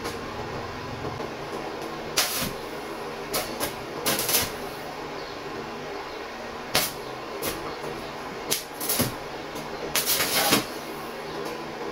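Electric arc welder laying short tack welds on thin sheet steel: about eight brief bursts of arc noise, each under a second, spaced irregularly over a steady low hum.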